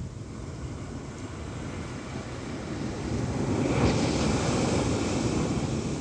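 Atlantic Ocean surf on a sandy beach: a steady rushing hiss of breaking waves that swells about three seconds in as a wave breaks and washes in, loudest near four seconds, then holds.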